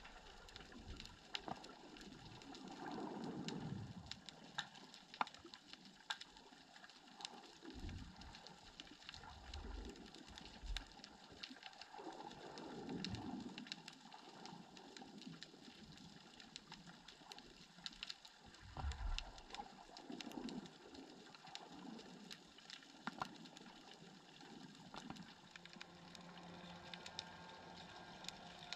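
Underwater ambience: a faint steady crackle of scattered clicks with a few sharper pops, and slow whooshing swells of water movement every several seconds. Near the end a low steady hum of a distant boat engine comes in.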